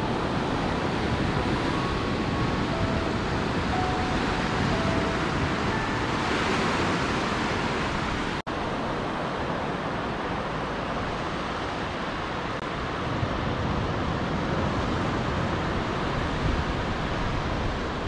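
Ocean surf breaking and washing up a sandy beach in a steady rush. The sound cuts out for an instant about eight and a half seconds in.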